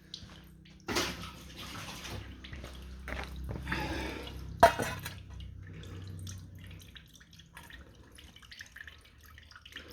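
Water splashing and dripping, starting suddenly about a second in and thinning out after about five seconds, with a single sharp knock near the middle that is the loudest sound.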